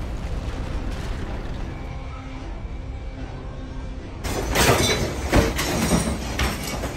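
A low, steady rumbling noise, then from about four seconds in loud, irregular rattling and clattering of furniture, shelved objects and hanging baskets in a room shaking in an earthquake.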